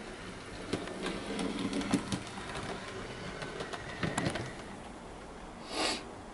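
Model diesel locomotive running on the layout's track: a quiet motor under a scatter of irregular clicks and rattles from the wheels over rail joints and points. A short hiss comes near the end.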